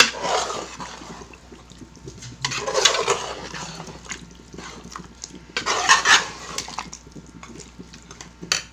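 A spoon stirring chicken pieces through a watery masala gravy in a cooking pan, with wet sloshing and the spoon scraping the pan in three main swells.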